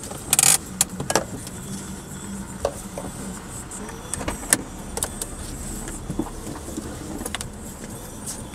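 Car driving along a snow-packed street, heard from inside the cabin: a steady low road and engine hum with a scatter of sharp clicks and knocks, the loudest cluster about half a second in.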